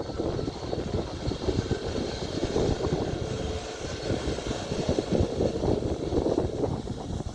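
Jet airliner engines running, a steady rushing noise with a faint high whine, mixed with wind buffeting the microphone.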